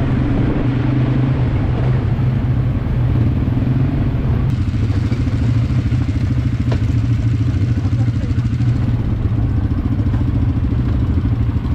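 Quad bike (ATV) engine running steadily while riding, heard loud and constant from on board the machine.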